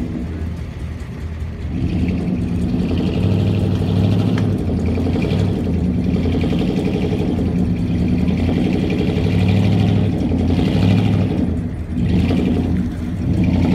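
Lifted mud truck's engine revving in repeated surges, rising and falling several times as the truck drives through deep mud and water.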